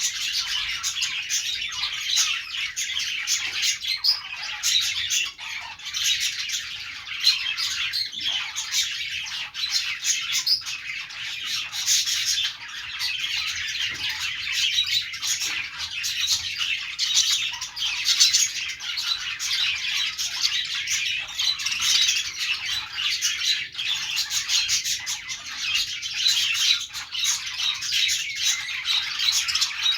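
A group of budgerigars (pet parakeets) chattering and chirping without a break, many quick overlapping high calls.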